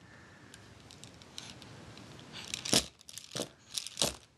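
A baby banging and rattling hard plastic toys, making about four sharp clacks in the second half after a faint rustle.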